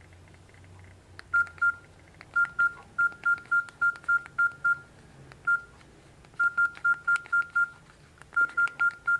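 Samsung Smiley phone's keypad tones: the same short beep sounds once for each key pressed as a message is typed on its QWERTY keyboard, with faint key clicks. The beeps come in quick runs of several a second with short pauses between words, starting about a second and a half in.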